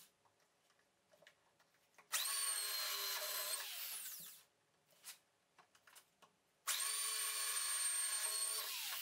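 Electric drill in a drill stand boring holes in a spruce board with a Forstner bit: two runs of about two seconds each, the motor's steady whine falling away as it spins down after each run, with a light click between them.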